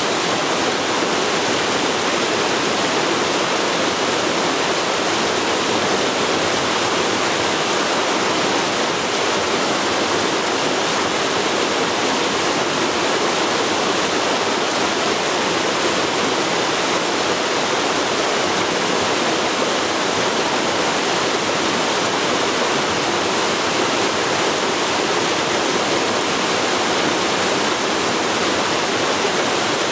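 Forest river flowing over rocks: a steady, even rush of water.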